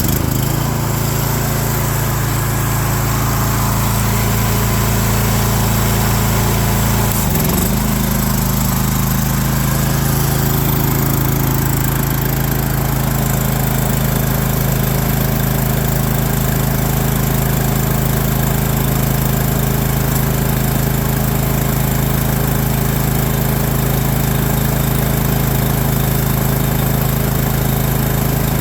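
Harbor Freight small gas engine, swapped onto an air compressor, running steadily while it drives the compressor. There is a brief dip in speed about seven and a half seconds in, after which it settles into an even run.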